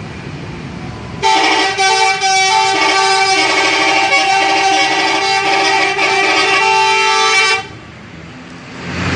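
Bus telolet horn playing a multi-note melody, several tones at once, the notes changing every half second or so. It starts a little over a second in and cuts off abruptly about six seconds later, over a steady haze of engine and road noise.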